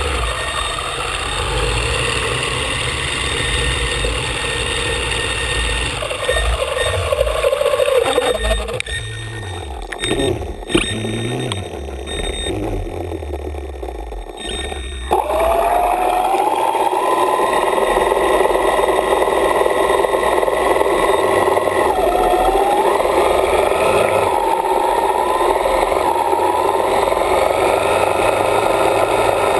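VideoRay Pro4 ROV's electric thruster motors whining underwater, their pitch gliding up and down as the thrusters change speed. The sound thins and breaks up for a few seconds in the middle, then returns steady.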